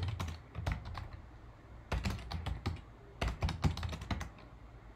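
Typing on a computer keyboard: runs of quick key clicks with short pauses between them, stopping a little before the end.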